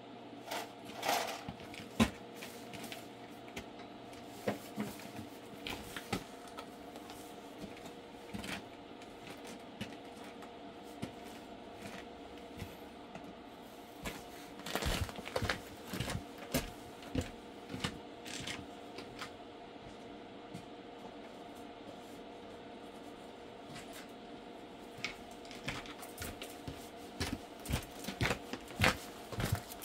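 Irregular light clicks and knocks over a steady faint hum, busiest about halfway through and again near the end.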